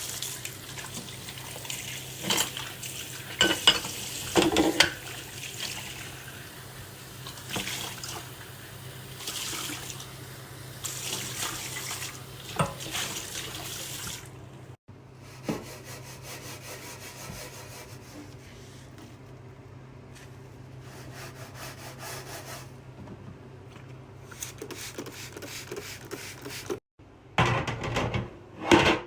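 Kitchen tap running into a sink during washing up, with scattered knocks and clatter of dishes and utensils, heaviest near the end.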